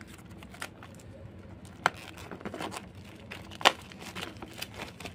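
Plastic wrap and a paper seal being torn and crinkled by hand while unwrapping a sealed earbud box: scattered soft crackles with two sharper snaps, the louder one about three and a half seconds in.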